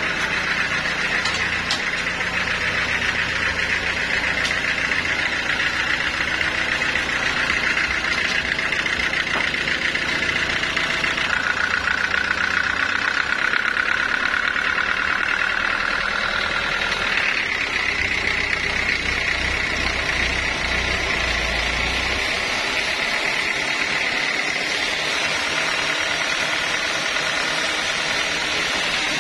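Belt-driven stationary engine powering a band sawmill, running steadily with a continuous mechanical drone. A steady high tone rides over it and steps in pitch twice, about a third of the way in and again just past halfway.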